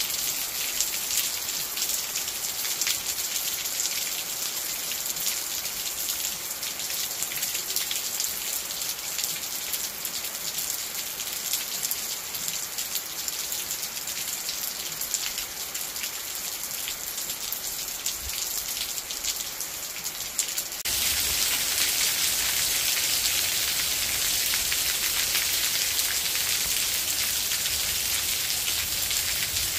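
Steady monsoon-season rain falling on trees, foliage and wet gravel: an even hiss thick with small drop ticks. About 21 seconds in it abruptly turns louder and fuller.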